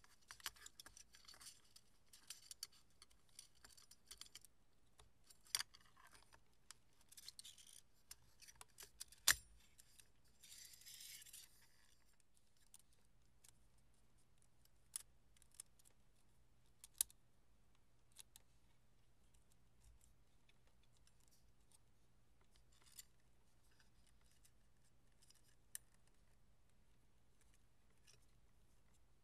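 Faint small clicks and light scraping of fingers handling the metal film-path parts of a movie camera: sprocket rollers, guide arms and gate. One sharper click comes about nine seconds in, then a short rustle, and the clicks grow sparser.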